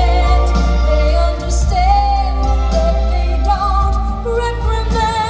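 Show soundtrack music with a singing voice carrying a wavering melody over a steady low backing.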